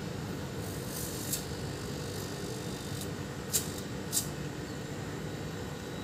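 Hermetic refrigerator compressor running with a steady low hum while its discharge tube is tested for pressure with a finger over the open end, a test for weak compression. A few short scraping clicks of the finger against the copper tube, the loudest about three and a half seconds in.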